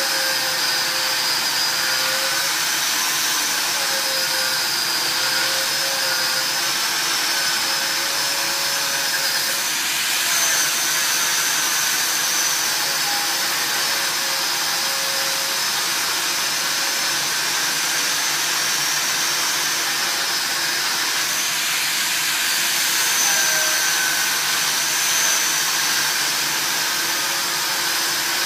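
Angle grinder grinding steel, its whine wavering in pitch as the disc is pressed into the work, over the steady rush of a TEKA Filtoo fume extraction unit sucking air and sparks through its arm.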